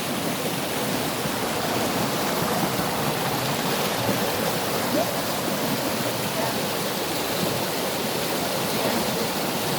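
Steady rushing of flowing water, like a stream or small waterfall.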